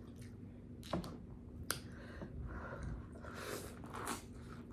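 Close-miked eating sounds: a person chewing with a few sharp mouth clicks and soft wet smacks.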